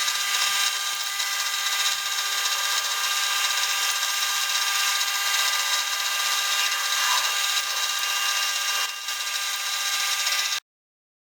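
A small high-speed power tool, such as a drill or rotary tool, running steadily with a high-pitched whine. It dips briefly about nine seconds in and cuts off suddenly near the end.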